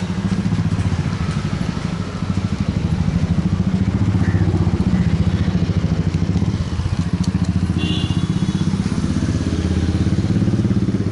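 A motor scooter's small engine running close by: a steady, low, fast-pulsing drone that dips briefly twice.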